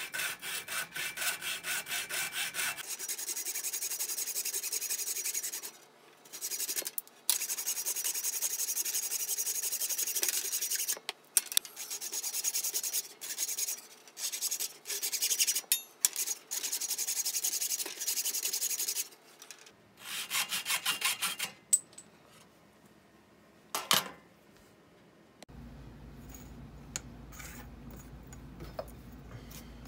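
Hacksaw cutting through a wooden dowel in quick back-and-forth strokes, in several runs with short pauses between them. A sharp knock comes about 24 seconds in.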